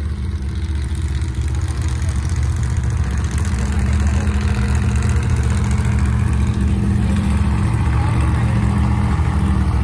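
Modified Chevrolet S-10 drag truck's engine idling steadily as the truck creeps up to the starting line, growing louder over the first few seconds.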